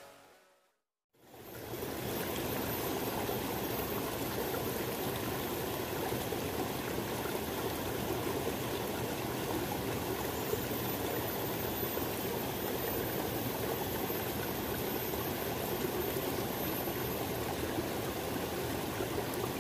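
Steady rushing of a rocky river flowing over and between boulders, starting about a second in.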